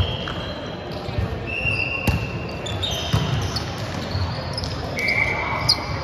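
Sneakers squeaking on a hardwood court as volleyball players move, several drawn-out squeaks, with a couple of sharp slaps of the volleyball being hit, about two seconds in and near the end.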